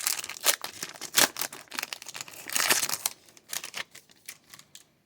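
Plastic-foil wrapper of a hockey card pack crinkling and tearing as it is opened, a run of quick, irregular rustles and crackles that die away near the end.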